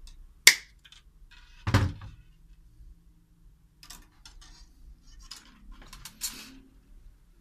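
Side-cutting pliers snipping through steel wire with one sharp snap, followed about a second later by a dull thunk, then a few light clicks and taps of handling on the workbench.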